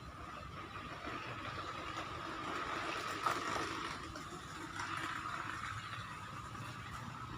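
Steady outdoor background noise at a river bank: a constant high-pitched drone over a low rumble, with a brief click a little over three seconds in.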